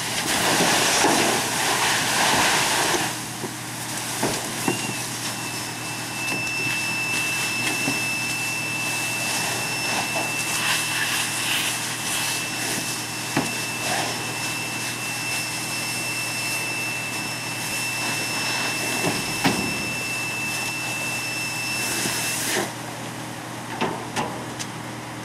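Water and steam hissing as a hose stream knocks down a burning dumpster, over the steady running of fire engines. The hiss is loudest for the first three seconds, and a thin steady high whistle sets in about five seconds in and stops near the end.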